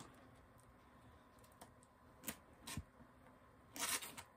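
Faint handling of bagged-and-boarded comic books: two soft taps a little past halfway, then a brief plastic rustle near the end.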